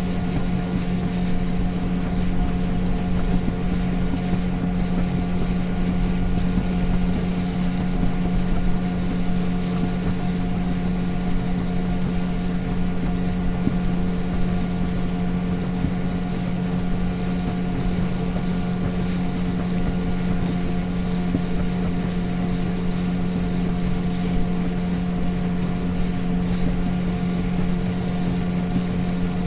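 Motorboat engine running steadily at cruising speed: a constant, even hum that holds one pitch, over the rushing noise of the hull through the water and wind on the microphone.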